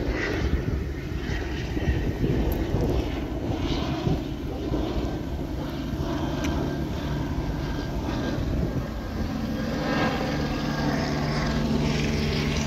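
Police helicopter overhead: a steady engine and rotor drone that grows a little louder near the end.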